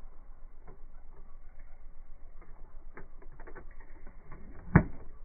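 Golf iron striking a ball off the grass once, a single sharp crack near the end, with faint scattered ticks before it.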